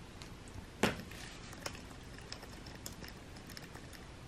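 Scattered light ticks and rustles as a cat wand toy with a feathered lure on a string is waved about, with one sharp tap a little under a second in.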